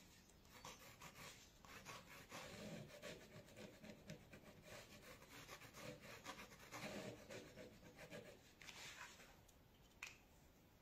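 Faint scratching of a gel pen drawing fine lines on paper, with a single small click near the end.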